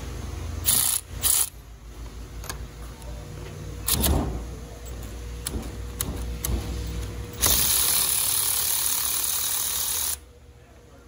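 Snap-on long-neck cordless ratchet motor triggered in two short bursts, then run for about three seconds before cutting off suddenly, with a clank and a few light clicks from handling in between.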